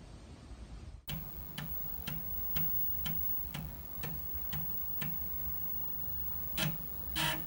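Regular dry clicking, about two clicks a second, typical of an Amiga floppy drive stepping its head with no disk in. Near the end comes one louder click, then a short, louder rattle.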